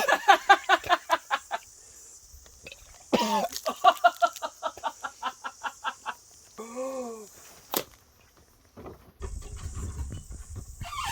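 A person's voice in two runs of quick, pulsed breathy bursts, then a short rising-and-falling groan. A sharp click follows, then a low rumble.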